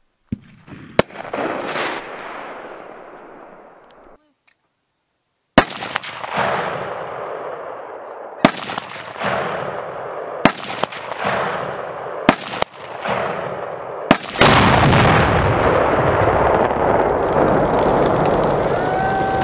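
A series of loud explosive bangs, each followed by a rumbling echo that dies away over a second or two. The last bang, about fourteen seconds in, runs straight into a loud, continuous roar.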